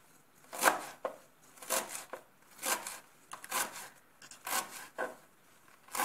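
Kitchen knife slicing through a bunch of mallow (khobiza) leaves onto a plastic cutting board, with a steady run of separate cuts, about one a second.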